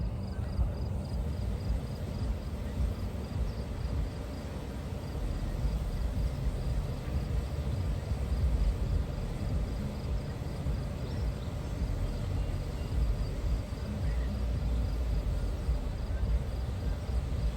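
Uneven low rumble of wind buffeting the microphone. Over it, a faint, rapidly repeating high ping from the crossing's warning bell dies away about halfway through.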